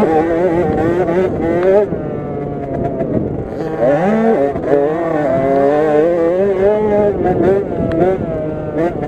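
KTM SX50 minibike's small two-stroke engine heard on board, revs rising and falling as it is ridden hard, with a quick rev rise about four seconds in.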